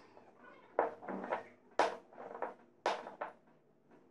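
Three sharp knocks on a stone countertop, about a second apart, each with a short clattery tail, as dough rounds are cut and handled.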